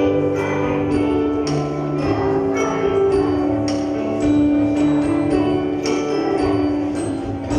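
Instrumental music with chiming, bell-like notes over held lower tones, playing steadily.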